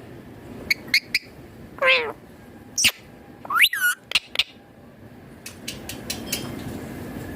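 Indian ringneck parakeet giving a string of short calls: a few quick chirps, a falling whistle-like call about two seconds in, and a call that rises then falls near the middle, followed by a few sharp clicks.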